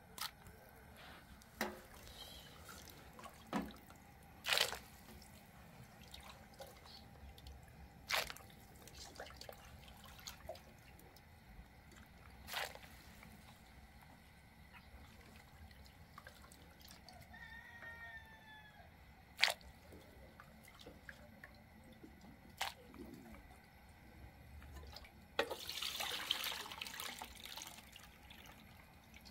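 Cookware being handled: scattered clinks and knocks of aluminium pots and lids, and near the end a few seconds of liquid splashing into a pot.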